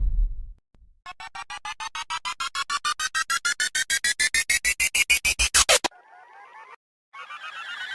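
Synthesized sound effect: a rapidly repeating electronic tone that speeds up and rises in pitch like a charging-up effect, cut off by a quick downward sweep. After a brief warble, a second rising pulsed tone starts near the end.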